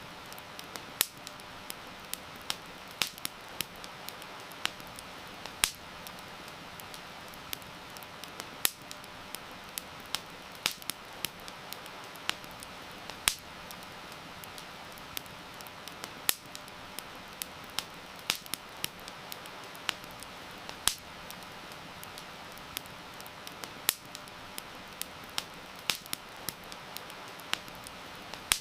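Wood fire crackling, with sharp irregular pops, over a steady hiss of heavy rain.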